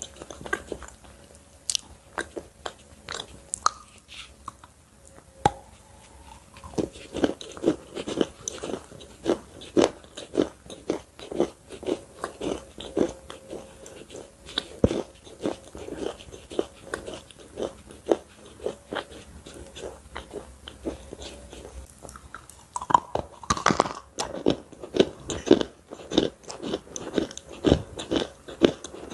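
Close-miked biting and chewing of something crisp and crumbly, in quick irregular crunches that come thickest in the last few seconds. A faint steady hum sits underneath for the first two thirds.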